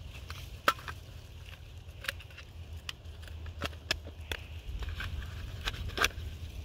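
Small handling noises: scattered clicks and crackles from hands working a small box and rustling dry wood shavings, the sharpest clicks about half a second in and near the end, over a steady low rumble.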